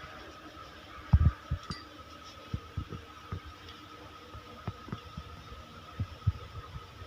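Irregular soft knocks and thumps as equipment is handled and put away, the loudest about a second in, with one light clink, over a steady high-pitched hum.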